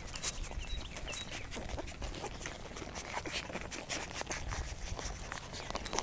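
Two-and-a-half-week-old whippet puppies nursing hard at their mother: a dense run of small wet suckling clicks and smacks, close to the microphone.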